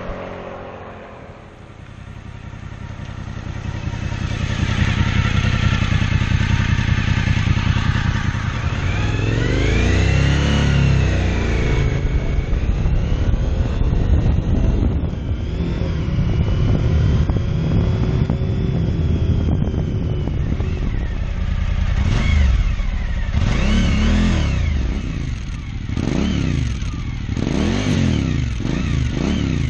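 Suzuki V-Strom 1000's V-twin engine running through a GPR Furore slip-on muffler with its baffle in. It grows louder over the first few seconds, and its pitch rises and falls about ten seconds in. In the last third the throttle is blipped again and again, the revs rising and falling several times.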